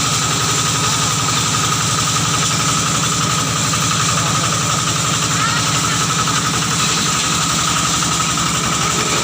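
Engine-driven grass chopper running steadily at a constant speed, with an even firing rhythm and a steady high whine over the engine note.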